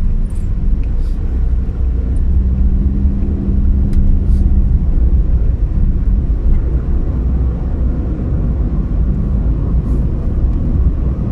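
Car driving, heard from inside: a steady low rumble of engine and road noise, with a faint hum that fades about six and a half seconds in.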